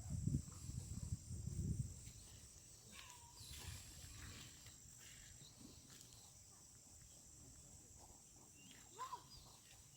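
Steady high-pitched insect chirring, with low rumbles in the first two seconds and a few faint short calls about three and nine seconds in.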